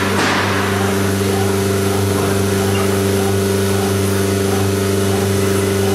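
CNC router with a tangential knife head running: a steady machine hum at one constant pitch with several overtones and a light hiss over it.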